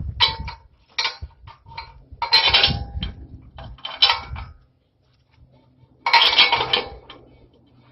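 Metal clinking and rattling in several short bouts with a brief ring, as bolts and the rack's metal pieces are handled and fitted together. The longest clatter comes near the end, after a quiet moment.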